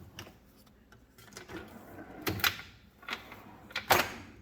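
Metal drawers of a Kobalt 50-inch rolling toolbox being worked: a few sharp clacks, the loudest near the end.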